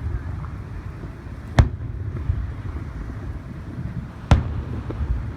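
Fireworks going off: two sharp bangs about three seconds apart over a steady low rumble.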